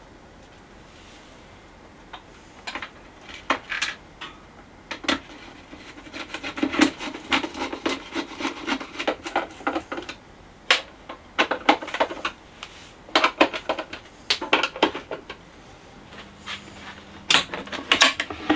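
Irregular clicks, knocks and rattling of a screwdriver and parts as a record deck is fitted back into its wooden portable case, busiest in the middle; near the end, a few knocks as the case's lid is handled.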